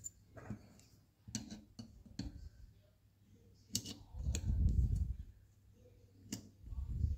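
Light metallic clicks and taps of a screwdriver working in the bore of a motorcycle front brake master cylinder, pushing the spring and internal parts into place. A duller low rumble of handling lasts about a second, starting about four seconds in.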